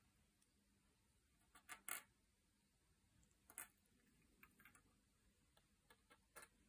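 Faint, scattered taps and clicks on a glass desktop as small objects are pawed and handled: a quick cluster of sharp clicks about two seconds in, the loudest, then single clicks spread through the rest, with near silence between.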